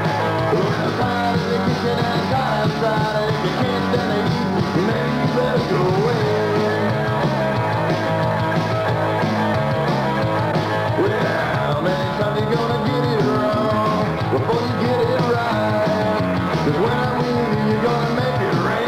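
Roots-pop cowpunk rock band playing a song with electric guitars and drums, dense and steady in level, with a lead line bending up and down in pitch.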